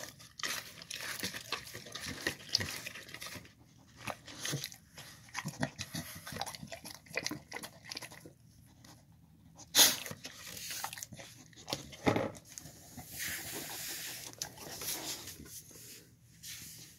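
A dog licking and lapping at a clear plastic bowl, its tongue and muzzle knocking the plastic in irregular wet clicks, with a sharp knock about ten seconds in and another about two seconds later.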